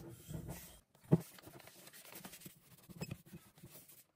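Light handling noises: scattered soft clicks, taps and scratchy rustles, with one sharper knock about a second in. No motor is running.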